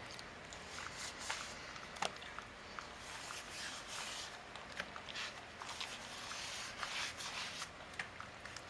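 Faint, uneven rubbing and brushing with a few light clicks: dish soap and water lubricant being worked onto the bead of a dirt bike tire.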